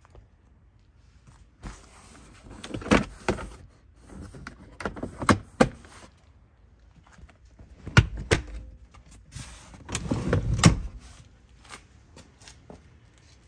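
Handling noise in a car's cabin: rustling, with scattered sharp clicks and knocks in a few clusters, the loudest about eight seconds in and again near ten and a half seconds.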